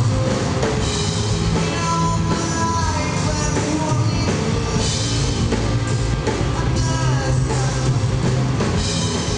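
Live rock band playing: electric guitar, electric bass and drum kit, loud and continuous, with gliding guitar notes.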